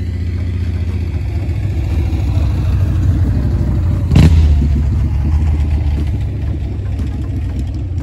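A motor vehicle passing, its low engine rumble swelling to a peak about four seconds in, where a single sharp knock sounds, then fading away.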